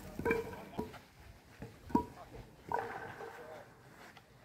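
Wooden kyykkä throwing bats and pins knocking: a few sharp, separate wooden clacks with a short ring, about a quarter second, one second and two seconds in. Faint voices can be heard in the background.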